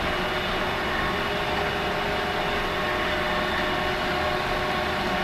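Metal lathe running at about 600 RPM with the power feed engaged, turning down a hydraulic cylinder piston rod: a steady mechanical hum with a few faint steady whining tones.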